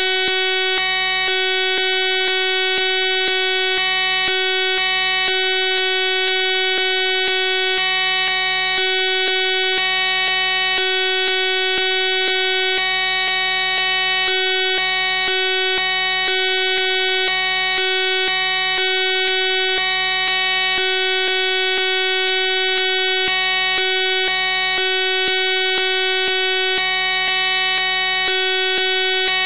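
Loud, steady electronic buzz: one unchanging pitched tone with many overtones and a bright hiss above it, under a lower hum that switches on and off in short blocks about every second.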